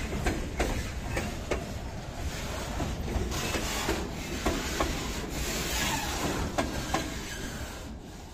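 Freight train wagons rolling slowly past close by: a steady rumble with repeated clacks of the wheels on the rails and stretches of hissing rail noise. It fades near the end as the last wagon goes by.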